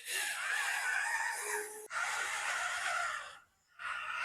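Electric hydraulic pump of a 1/14 scale Huina RC construction machine whining as it works, a steady hiss with a wavering whine. It cuts out for a moment about three and a half seconds in, then starts again.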